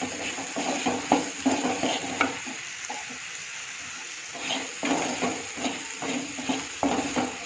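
Spatula stirring and scraping chopped bilimbi (irumban puli) pieces around a kadai in hot sesame oil, with sizzling, in repeated strokes. The strokes pause for a couple of seconds midway, then resume.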